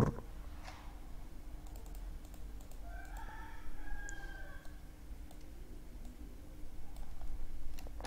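Faint clicks of a computer keyboard and mouse, with a low steady hum underneath. About three seconds in, a faint drawn-out pitched call sounds in the background for over a second.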